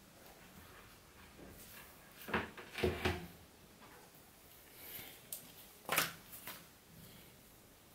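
Short knocks and clicks of small objects being handled by hand, a cluster of three about two to three seconds in and the sharpest single click about six seconds in.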